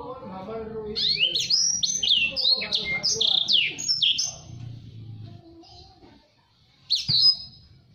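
Blacksang (black-throated canary x sanger canary hybrid) singing: a fast, tightly packed run of sweeping whistled notes for about four seconds that trails off, then one short loud phrase near the end.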